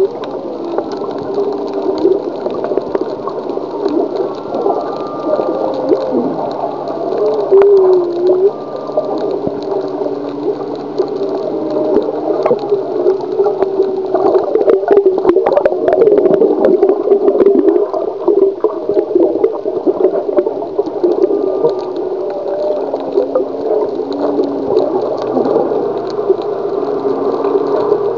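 Humpback whale song heard underwater: a continuous run of moans and gliding tones, some rising and some falling. A patch of crackling clicks comes about halfway through.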